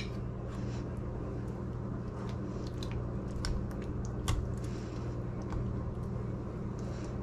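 Wire whisk stirring soft cheese into a thick white sauce in a metal saucepan: soft wet squelching, with a few light ticks of the whisk against the pan, over a steady low hum.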